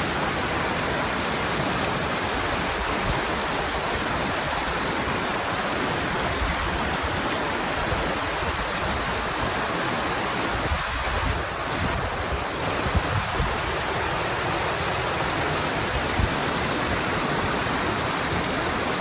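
Waterfall rushing: a steady, even wash of falling water, with a few brief knocks around the middle.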